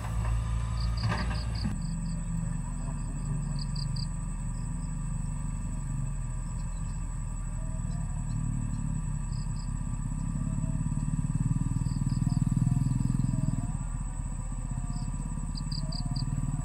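A steady low rumble that swells about twelve seconds in, with short clusters of three or four high chirps now and then.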